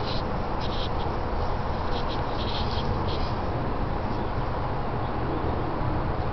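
Steady outdoor background noise with a few faint, short high-pitched chirps in the first half.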